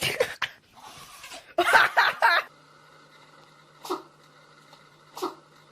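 Pets sneezing: sharp sneezes in the first half, the loudest about two seconds in, then two short, lighter sneezes about a second and a half apart over a steady low hum.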